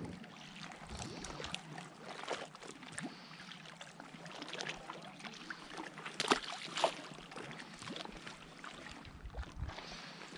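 Handling noises: clothing rustling with scattered small clicks and taps, and two sharper knocks about six seconds in.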